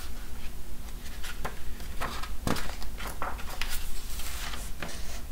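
Pages of a large picture book being handled and turned: a series of short paper rustles and crinkles over a low steady hum.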